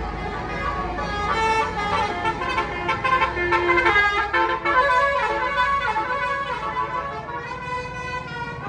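A bus's musical multi-tone basuri horn playing a tune of changing notes, loudest in the middle, over a low engine rumble that fades in the first couple of seconds.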